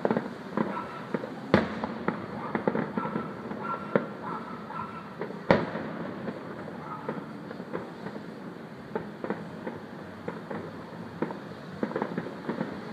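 Fireworks going off: two loud bangs, about a second and a half in and again four seconds later, amid many smaller pops and crackles.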